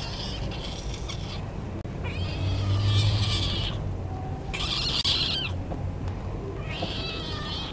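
A wet tabby kitten meowing while it is towel-dried after a bath: four long, high-pitched cries, about two seconds apart.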